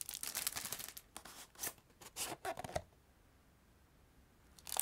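Clear cellophane wrap being torn and crinkled off a cardboard doll box: a dense rustle for the first second, then scattered crinkles. It stops about three seconds in, and plastic crinkling starts again near the end.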